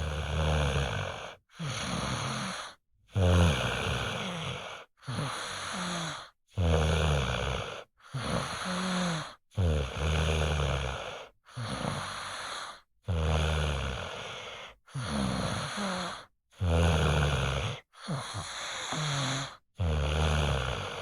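Snoring, about a dozen snores in a steady run, one every one and a half to two seconds. Each has a low pitched drone and breaks off abruptly into a short silence.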